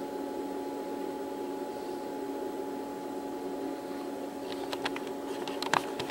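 Steady machine hum made of several fixed tones over a light hiss. Near the end a quick cluster of light clicks and taps comes in, the loudest one just before the end.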